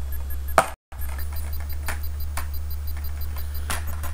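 Plastic Blu-ray case being handled and opened: scattered clicks and taps over a steady low electrical hum, with the sound cutting out for a moment about a second in.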